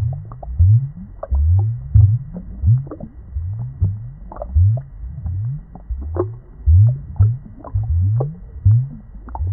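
Aquarium water bubbling: low gurgling bloops, about two a second, each rising in pitch, with small clicks and pops of bursting bubbles scattered over them.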